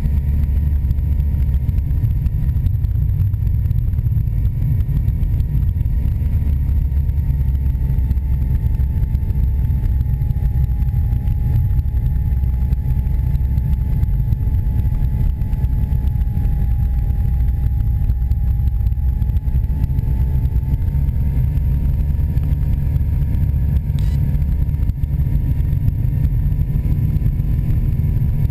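A biplane's piston engine and propeller drone steadily in flight, heard from on board with heavy airflow rush on the microphone. A faint higher whine sags slightly in pitch through the middle, then recovers.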